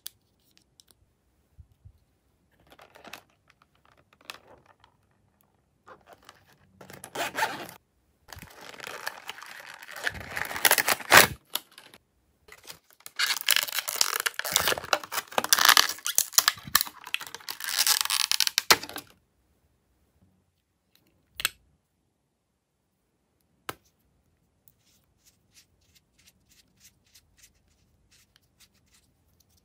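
Clear plastic blister packaging of a toy cosmetics set crackling and tearing as it is pulled open, in long noisy stretches through the middle, followed by a couple of sharp clicks.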